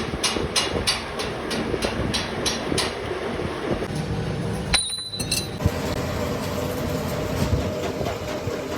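Workshop machinery running, with a rhythmic ticking about four times a second for the first three seconds. After a brief break about five seconds in, a steady machine hum follows.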